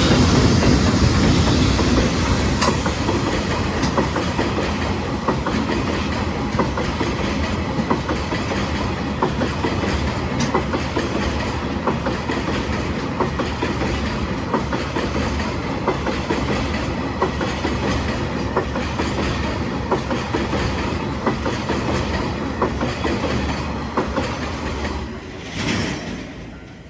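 Freight train of oil tank wagons rolling past, wheels clacking steadily over the rail joints. It is loudest at first and fades, dropping away about 25 seconds in as the end of the train passes.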